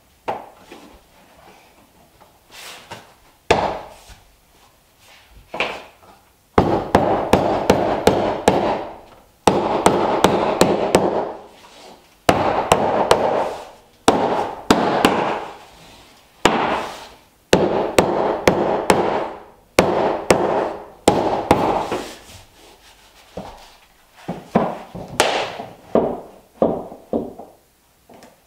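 Mallet knocking plank flooring into place, often through a tapping block, in bursts of rapid taps with short pauses between, as the interlocking edges of the planks are seated.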